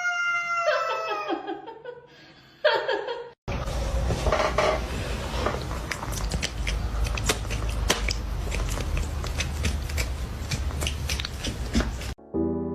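A cat's drawn-out yowl trailing off in the first half second. After a cut, a long noisy stretch of scattered clicks over a steady low rumble, then piano music starting near the end.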